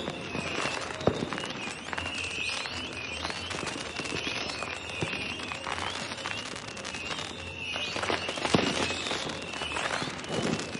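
Fireworks going off in a continuous display: a steady crackle with many scattered bangs, the loudest about a second in and again about two-thirds of the way through.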